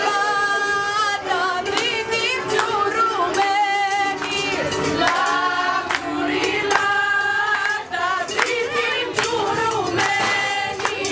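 A group of voices singing a song together in long held notes, with sharp claps breaking in along the way.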